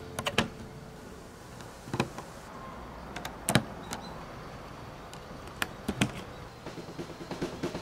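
Plastic Plarail toy track pieces being set down on wooden boards and snapped together: scattered light clicks and knocks, a second or two apart.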